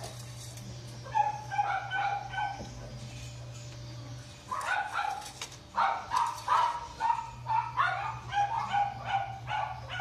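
A dog barking repeatedly: a short burst of barks, then a longer run of quick barks, two to three a second, over a steady low hum.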